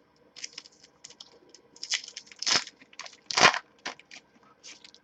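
Trading cards being handled and slid against one another as a pack is gone through card by card, giving irregular light clicks and crinkly rustles. The loudest rustles come about halfway through.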